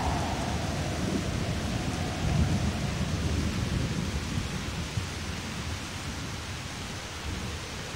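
Thunderstorm recording: a steady hiss of rain with an uneven rumble of thunder underneath, slowly growing quieter.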